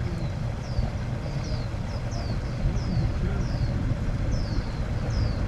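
A bird repeating short, high, falling chirps, about two a second, over a steady low rumble.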